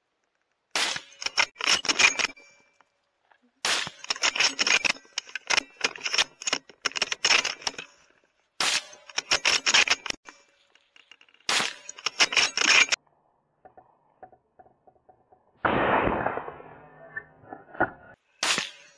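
Custom .308 Win bolt-action rifle firing repeatedly at feral pigs, about six shots a few seconds apart. Each shot is followed by a quick run of clicks from the bolt being worked hard to chamber the next round.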